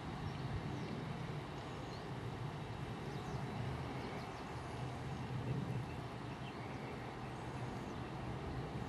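Boeing 737-400's CFM56 jet engines running as the airliner rolls along the runway, heard as a steady low rumble, with faint high chirps above it.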